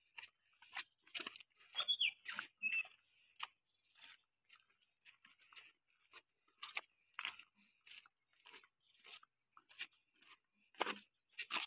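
Footsteps in sandals crunching over loose river gravel and stones, a steady walking pace of short crisp crunches at about two to three a second. Two short high chirps come about two seconds in.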